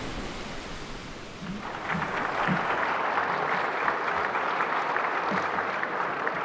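A soft, even rushing noise, then audience applause that breaks in about one and a half seconds in and keeps going steadily.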